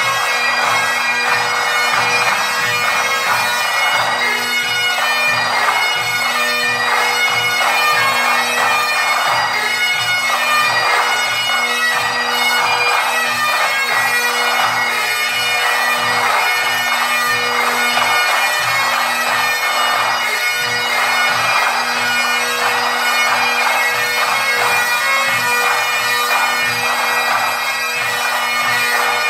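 Military pipe band playing: Great Highland bagpipes sound a tune over their steady drones, with snare and bass drums beating along underneath.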